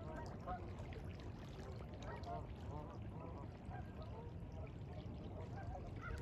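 A large flock of waterfowl, geese among them, calling continuously in many overlapping short honks.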